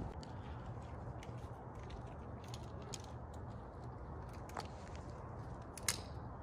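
Faint outdoor background noise with a steady low rumble, scattered light clicks, and one sharper click near the end.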